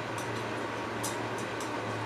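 A few faint, irregular light clicks from hands working on a grandfather clock's dial and moon-phase mechanism, over a steady low hum.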